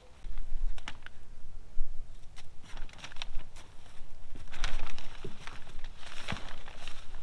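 Rustling and crinkling of frost covers being pulled off plants, with scattered clicks and handling noise.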